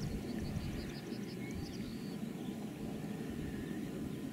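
A steady low rumble of outdoor background noise, with a small bird singing a quick run of about ten short high chirps in the first second and a half.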